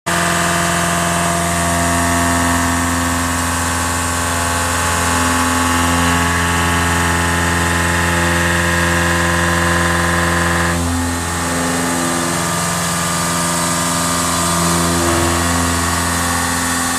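CNC milling machine cutting a metal block with a milling cutter under flood coolant: a steady machining sound with several held tones, whose pitch pattern shifts about eleven seconds in as the cut changes.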